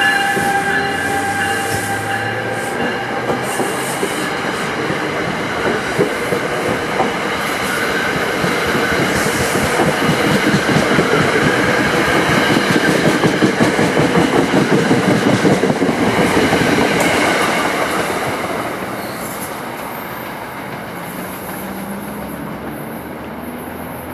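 Passenger train rolling through a station, its wheels clattering rapidly over the rail joints. The clatter builds to its loudest around the middle and fades away near the end.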